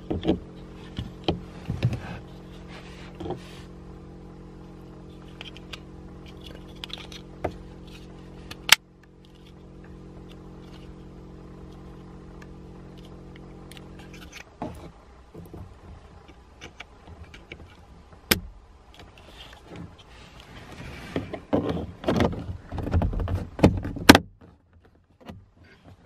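Plastic clicking, rubbing and rattling as an electric window control switch and its plastic trim bezel are handled and pressed together, with a few sharp snaps. A steady hum runs underneath and stops suddenly about nine seconds in.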